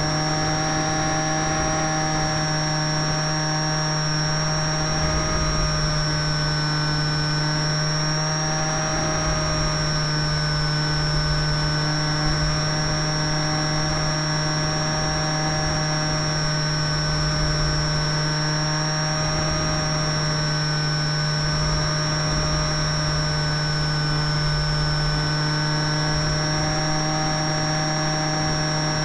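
Model aircraft's motor and propeller running steadily in flight, heard from a camera on the airframe: a constant high whine that wavers slightly in pitch over a steady low hum, with wind buffeting the microphone.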